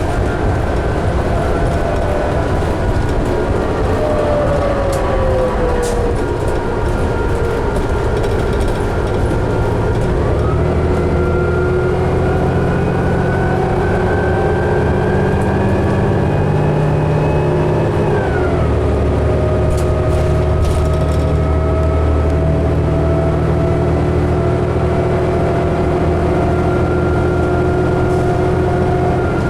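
2011 New Flyer D60LFR articulated diesel bus heard from on board, its engine and transmission pulling up to speed: a whine climbs steadily, drops sharply at a gear change about two-thirds in, then climbs again.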